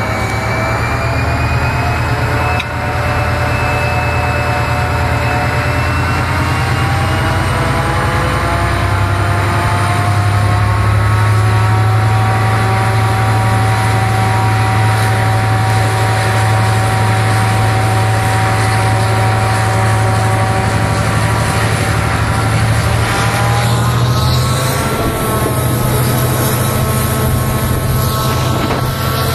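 Diesel-electric locomotive of Croatian Railways class 2044 running under power just ahead, hauling a passenger train: a loud, steady engine drone with a deep hum. Its pitch creeps up over the first ten seconds, holds, then climbs again about three-quarters of the way through as the engine is opened up.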